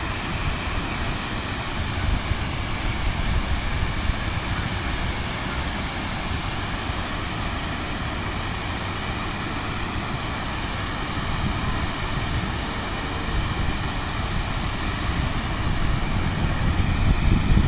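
Water pouring steadily over a low river weir, with wind buffeting the microphone in gusts that grow a little stronger near the end.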